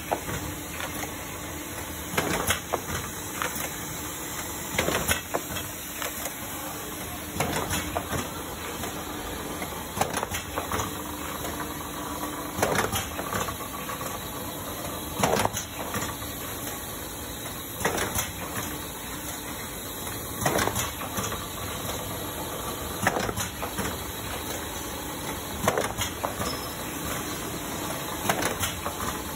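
Tauler Printlam 52 sheet laminator running with its automatic feeder: a steady machine hum and hiss, with a short knock repeating evenly about every two and a half seconds as each sheet is fed through.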